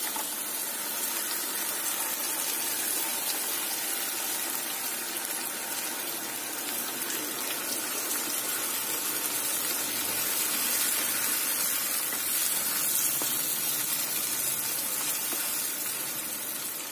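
Blended tomato sizzling in hot oil with softened onions in a kadai, a steady hiss, as it is stirred in with a wooden spatula.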